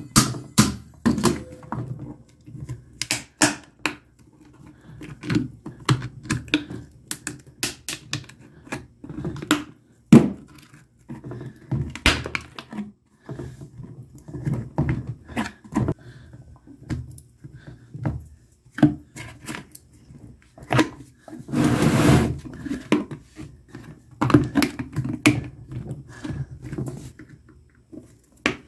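Screwdriver prying the plastic top cover off a maintenance-free car battery: irregular clicks, knocks and cracks of the plastic as it is worked loose bit by bit, with one short scraping rasp about three quarters of the way through.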